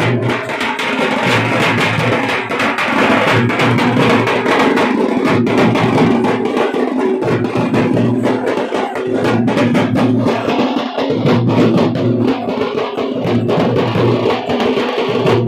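Loud music with fast drumming and a plucked string melody.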